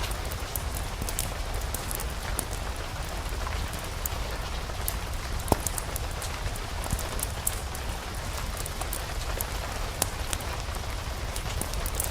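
Steady rain mixed with a fireplace's crackle: an even hiss with a low rumble underneath, and scattered sharp pops and ticks.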